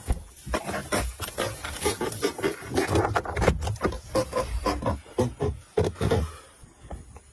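A big catfish flopping and thrashing on a carpeted boat deck: an irregular run of thumps and slaps that dies away about six seconds in.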